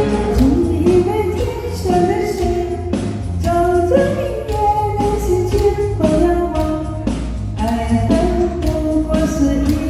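Music: a pop song's backing track with a steady drum beat and a shifting melody line.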